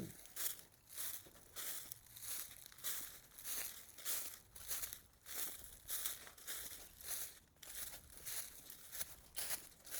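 Walking footsteps crunching through dry leaf litter on a trail, an even pace of about one and a half steps a second.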